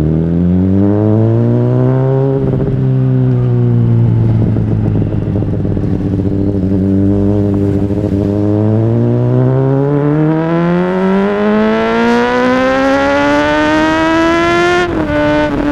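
Honda CBR600RR's inline-four with an aftermarket exhaust, riding under power. The engine note climbs, eases and holds, then climbs long and high before dropping sharply about fifteen seconds in at a gear change.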